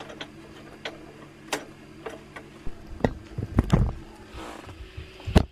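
Electric sewing machine motor humming with light irregular needle ticks, barely moving even with the foot pedal floored. The hum stops about two and a half seconds in. Heavier handling thumps follow, with one sharp knock near the end.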